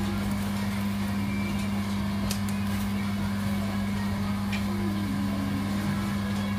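Steady low machine hum, unchanging throughout, with two or three faint short clicks.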